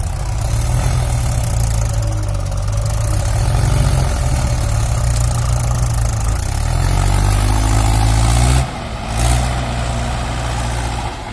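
Diesel engines of a Mahindra 575 DI tractor and a JCB backhoe running hard under load as the backhoe pushes the stuck, loaded tractor-trolley out of sand. About seven seconds in, the engine pitch rises, then drops off suddenly for a moment before picking up again.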